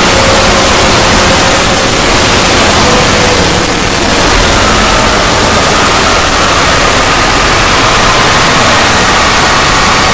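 Loud, harsh, distorted noise drone from an edited 'void' logo sound effect, with faint tones underneath that drift slowly in pitch.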